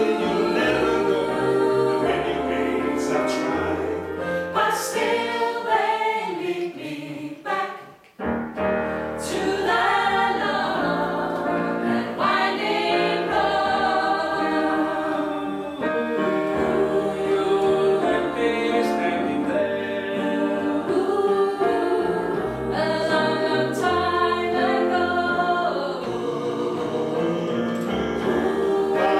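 Small mixed vocal ensemble of men and women singing a cappella in close harmony. About eight seconds in the voices stop briefly between phrases, then come back in.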